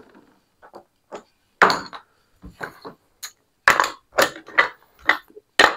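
Casino chips clacking together as they are picked up and stacked on a craps table: a handful of separate sharp clicks, most of them in the second half.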